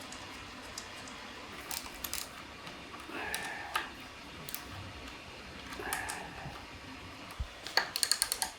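Light clicks and taps of small metal tools or parts being handled, with a quick run of clicks near the end.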